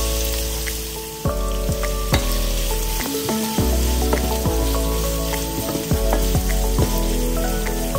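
Food frying in hot oil in a pan, a steady sizzling hiss, under instrumental background music with a bass line and a beat.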